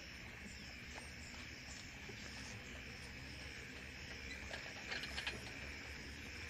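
Insects chirring steadily outdoors, a continuous high buzz in two pitches over a low rumble, with a few faint clicks about five seconds in.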